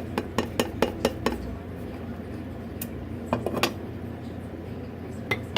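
A metal spoon clinking against a cooking pot: a quick run of about five taps a second through the first second or so, then a few scattered clinks about three and a half seconds in and one more near the end.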